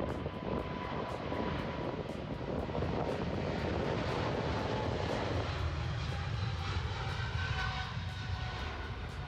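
Boeing 777-300ER's twin GE90-115B turbofans at takeoff thrust during the takeoff roll: a steady jet roar with a faint whine. About halfway through the sound turns deeper, with a stronger low rumble.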